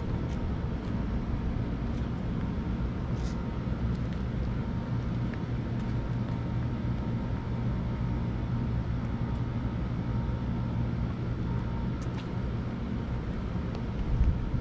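Steady low outdoor rumble with a faint steady hum, and a couple of louder low bumps near the end.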